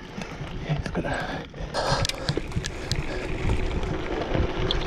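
Mountain bike rolling downhill on a dry dirt singletrack: the tyres crunch over loose dirt and the bike gives irregular clicks and rattles over the bumps. There is a short lull about one and a half seconds in.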